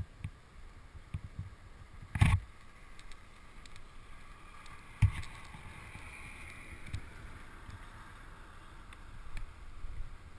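Wind rushing over a helmet camera's microphone during a parachute landing approach, with two loud thumps about two and five seconds in.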